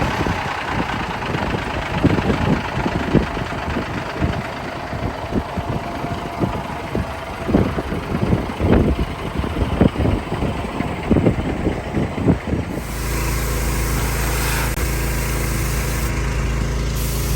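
Vehicle engine running just after starting, with irregular knocks over a noisy roar; about 13 seconds in, the sound changes abruptly to a steady low engine hum.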